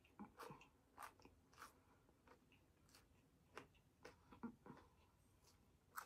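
Faint close-up chewing of a hard-shell taco: scattered soft crunches and mouth clicks, with no steady rhythm.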